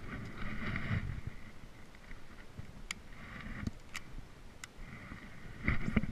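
Gear being handled on a paddleboard as a baitcasting rod is picked up and readied to cast: several sharp clicks and low knocks with rustling noise.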